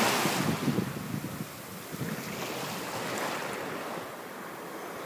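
Shallow seawater sloshing and rushing around a camera held underwater, heard muffled through its housing; a swell of water noise in the first half second, then a steadier wash.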